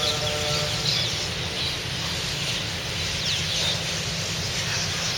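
A large flock of birds roosting on a wire, calling continuously: many short, high chirps overlapping into a dense chatter. A steady low rumble runs underneath, and a brief pitched squeal sounds in the first second.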